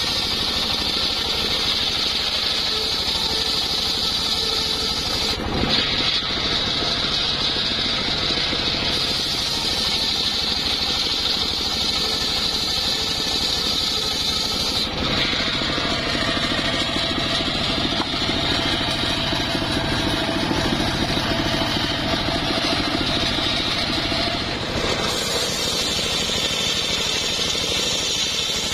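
Homemade circular saw bench ripping timber boards lengthwise into rafters: a steady, loud whine of the toothed blade cutting through the wood over the running drive. The tone shifts abruptly about five, fifteen and twenty-five seconds in.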